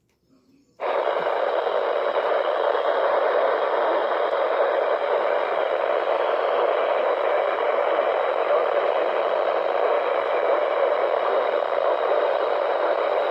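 Steady hiss of radio static that starts suddenly about a second in, after a moment of silence.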